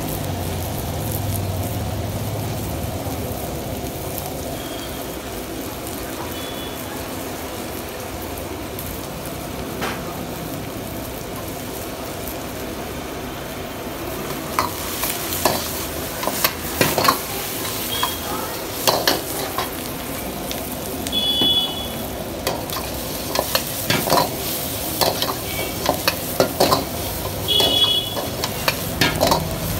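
Chopped onion and capsicum sizzling in a hot wok. From about halfway through, a metal ladle scrapes and clanks against the wok again and again as the vegetables are tossed.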